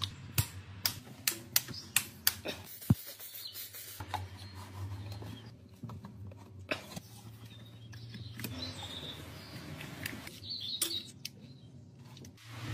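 Hand tools and parts being handled under a car: a run of sharp clicks, about two or three a second, in the first three seconds, then quieter rubbing and handling noises over a low steady hum.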